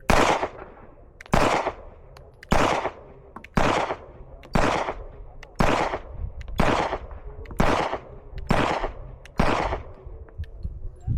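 Ten shots from a Smith & Wesson M&P Shield 9mm pistol, fired at an even pace of about one a second. The pistol cycles each round from an aftermarket ProMag magazine without a jam.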